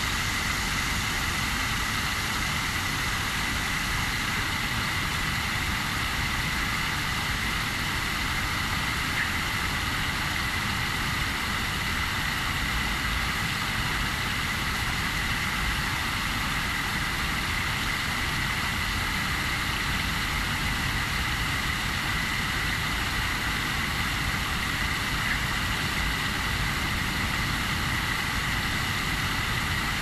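Small stream bubbling and running steadily over rocks, with a steady high-pitched hum on top.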